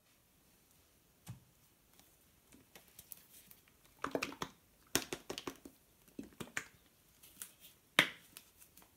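A plastic squeeze bottle of strawberry topping being handled with gloved hands: a dull thump, then a run of small clicks and light knocks, and one sharp click near the end.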